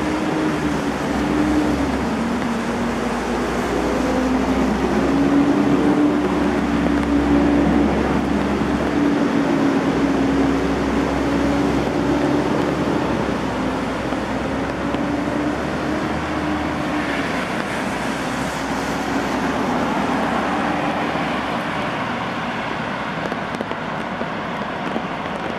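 Heavy rain falling steadily on a city street. Under it runs a low, slightly wavering hum that fades about two-thirds of the way through.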